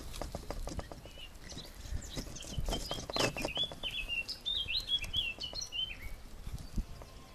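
A small bird singing a run of quick, wavering high chirps from about one second in until about six seconds in. Underneath are soft, irregular clicks and crackles of a sharp filleting knife cutting down a pollack's backbone and ribs on a wooden board.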